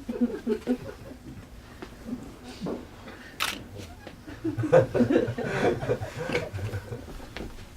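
A person's voice in short, pulsed bursts like chuckling: once at the start and again, louder, from about four and a half seconds in.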